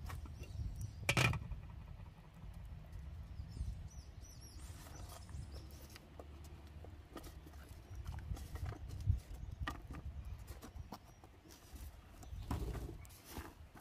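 A metal cooking-pot lid clinks sharply about a second in as it is lifted. Then come scattered light clicks and rattles as dried root slices are tipped from a plastic tray into the pot, over a low rumble.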